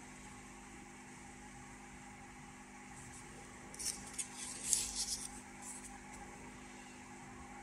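Stiff old paper rustling and crackling as a page of an instruction booklet is handled and turned, a short burst about halfway through, over a steady low room hum.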